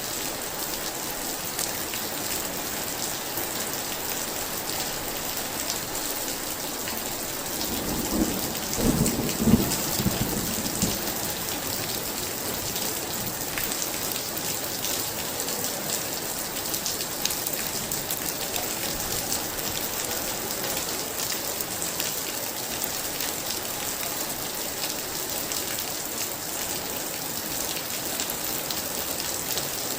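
Heavy rain pouring steadily, with a peal of thunder rumbling from about 8 to 11 seconds in, loudest near the middle of that stretch.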